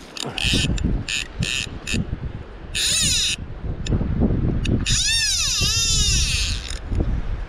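Centerpin fishing reel spinning as a hooked steelhead runs, its clicker buzzing in several short bursts, then in two longer runs whose pitch swoops down and back up as the spool slows and speeds again.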